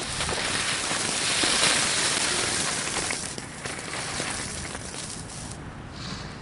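Fireworks hissing and crackling, a dense spray of small pops that swells about a second or two in and thins out after about three and a half seconds.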